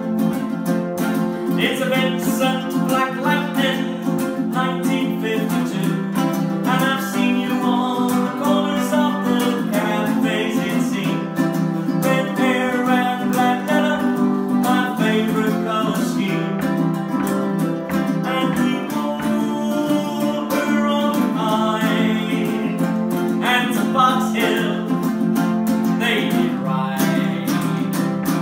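Two ukuleles, one of them a baritone ukulele, played together in a lively folk song, with no pause.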